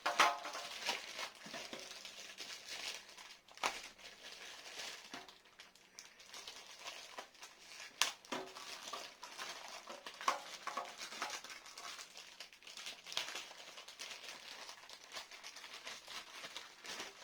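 Plastic toy packaging being opened and handled: irregular crinkling and rustling, with a few sharp clicks or snaps along the way.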